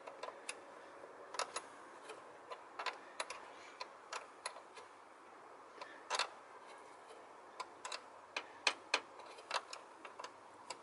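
Ratchet wrench with a 10 mm socket clicking in short, irregular strokes while tightening the nut on the negative battery cable clamp. The clicks come a few a second, sometimes in quick pairs or small clusters.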